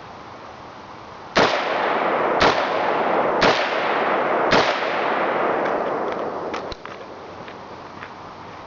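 AR-15 rifle firing .223 Remington, Wolf steel-case 55-grain ammunition: four shots about a second apart, each with a long echo that carries on after the last shot.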